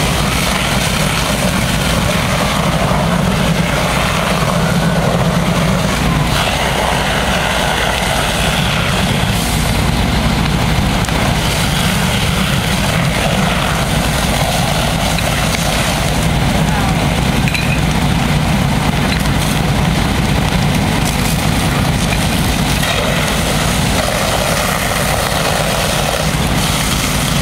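A fire engine's engine running steadily at pumping speed, a continuous low drone, while its pump feeds the hose lines.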